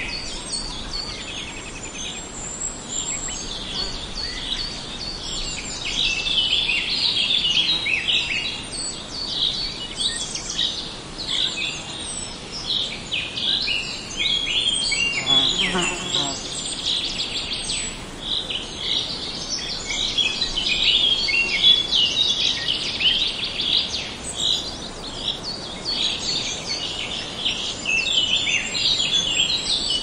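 Many small birds chirping and singing at once, a dense birdsong chorus of quick high notes that rises and falls throughout. About halfway through, a brief lower call falls in pitch.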